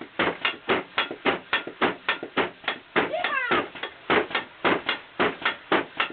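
Computer-controlled pneumatic bed mechanism knocking rhythmically, about four knocks a second, as the air-driven bed works its sleeper. A short squeal that glides up and down cuts in about three seconds in.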